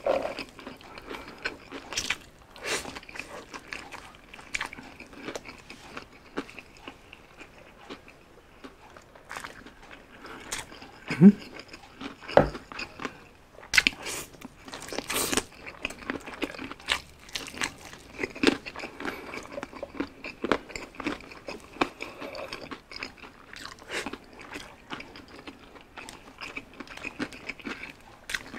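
Close-miked eating of spicy McDonald's fried chicken: crunching bites through the crispy breaded skin and chewing, with many short crunches and crackles throughout.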